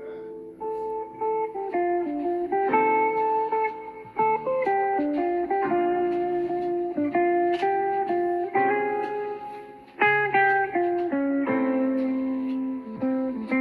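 Guitar music: plucked notes played one after another as a melody, some held and ringing, with a short drop in level just before a fresh, louder attack about ten seconds in.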